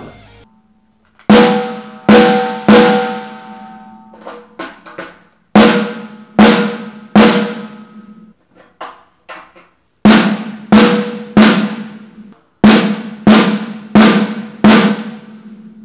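Snare drum played with sticks: loud single strokes in short groups with softer ghost notes between, each hit ringing briefly. The head is damped with three glow-in-the-dark stickers to calm its overtones, which the player says works well.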